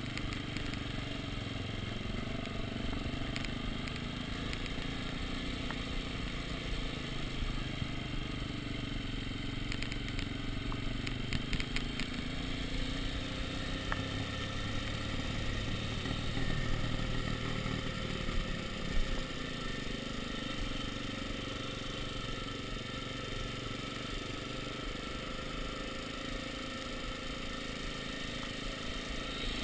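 Dirt bike engine running, its pitch rising and falling as the rider works down a rough dirt road, heard from the rider's chest, with scattered rattles and knocks from the bike jolting over bumps.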